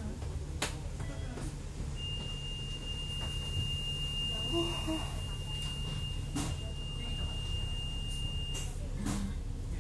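Double-decker bus interior: the engine's steady low drone with a few short rattles. A single steady high-pitched electronic beep sounds from about two seconds in and cuts off near the end, lasting several seconds.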